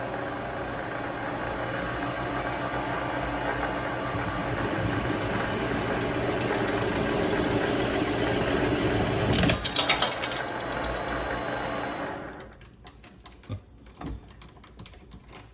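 Mini lathe running while a parting tool cuts into a spinning aluminum sleeve, a steady machine sound with a short, louder, harsher patch about nine and a half seconds in. About twelve seconds in the lathe stops, and a few light clicks follow.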